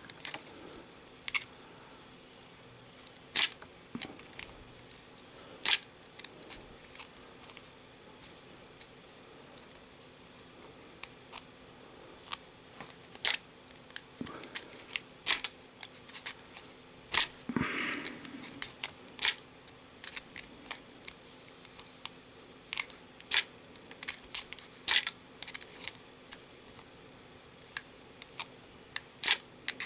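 Lock-picking a Master Lock M40XKAD padlock: a hook pick and tension bar working the pins in the keyway, making irregular small metal clicks and ticks, sometimes several in quick succession.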